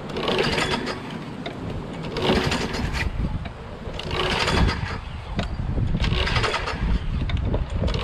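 Craftsman mower's 6.5 hp Briggs & Stratton Quantum engine pulled over on its recoil starter four times, about two seconds apart, cranking without firing: it is getting no spark.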